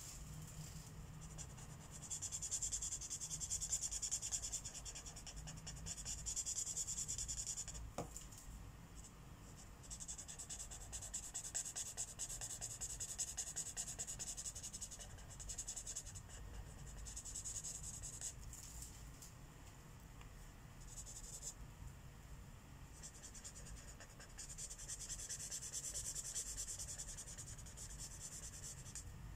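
Felt-tip marker scratching over paper in coloring strokes, coming in stretches of a few seconds each. There is a single click about eight seconds in.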